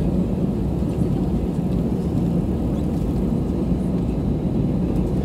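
Airbus A320 taxiing with its jet engines at idle, heard inside the cabin: a steady low rumble with a constant hum.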